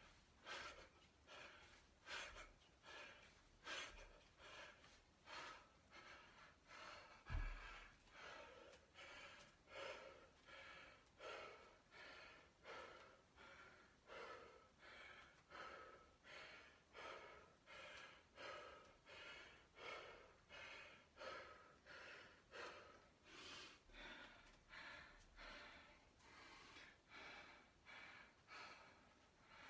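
A man panting hard from exertion after kettlebell swings, quick breaths about one and a half a second. One heavy thud about seven seconds in as the 40 kg kettlebell is put down on the wooden floor.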